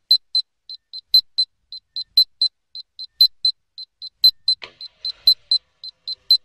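Rapid high-pitched electronic beeping from the rocket's onboard electronics, about four short beeps a second with a louder one each second. This is typical of a flight altimeter beeping its status on the pad.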